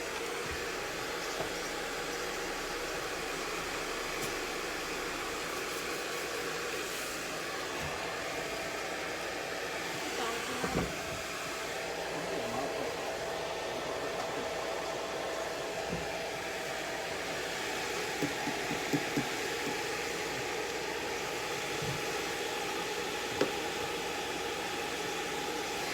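Hair dryer blowing steadily, with a few light knocks now and then.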